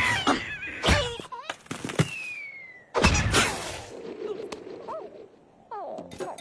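Cartoon sound effects for animated animal characters: squawks and grunts with a few sharp thumps, a descending whistle about two seconds in, then a loud burst of noise at about three seconds that trails away.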